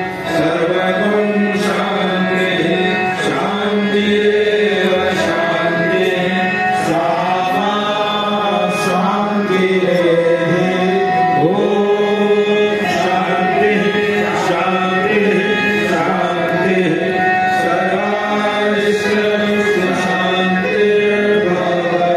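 Background music: a gliding melody over a steady low drone, with light percussive strokes.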